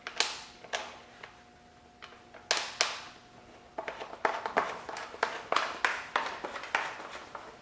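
A few light clicks and knocks from hand work on a dirt bike. They turn into a run of evenly spaced clicks, about three a second, in the second half.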